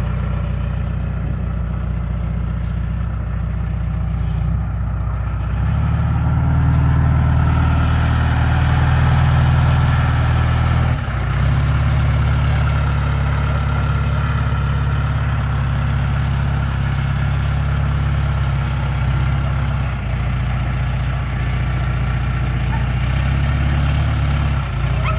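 Engine of a John Deere loader tractor running as the machine drives across rough grass. The engine note strengthens about six seconds in, dips briefly around eleven seconds, then settles back to a steady run.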